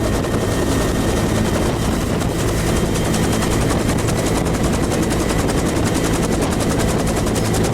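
Helicopter running close by: the rotor beats in a steady, rapid chop over a constant engine drone.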